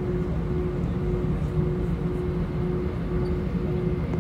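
Airbus A320 cabin noise while taxiing: a steady low rumble of the IAE V2500 engines at taxi thrust and the aircraft rolling, with a hum that pulses about twice a second.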